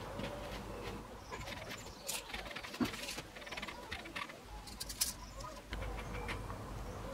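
A few sharp clicks and taps as plastic spring clamps are handled on a stone tabletop, with birds calling in the background.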